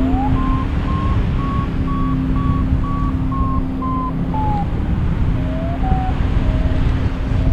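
Paragliding variometer beeping its climb tone in a near-continuous chain of short beeps, high at first and dropping in pitch about four to five seconds in as the lift weakens. Heavy wind noise on the microphone runs under it, with a steady low hum.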